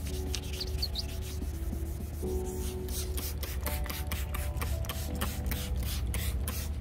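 Hand wet-sanding a plastic headlight lens: short rubbing strokes that grow clearer about three seconds in and run at roughly three to four a second. Background music plays underneath.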